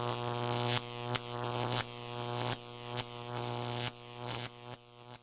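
Electronic buzzing drone on one steady low pitch, chopped by glitchy clicks about every half second, stepping down in loudness toward the end.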